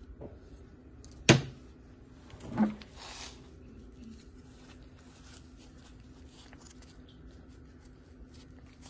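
Kitchen handling sounds: a sharp knock about a second in, then a softer knock and a brief rustle a little over a second later.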